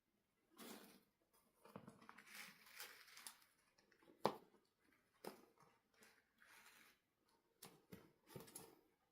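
Faint, irregular handling noises, mostly soft rustles with a few sharp clicks. The loudest click comes about four seconds in.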